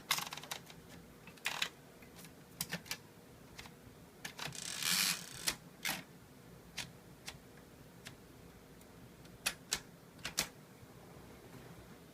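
Hangul typewriter keys struck one at a time, slowly and irregularly, the typebars hitting through carbon paper with no ink ribbon fitted. A longer rasping sound comes about five seconds in.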